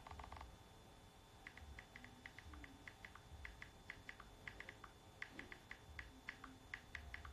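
Smartphone being typed on quickly: a fast, irregular run of faint keyboard clicks, starting about a second and a half in.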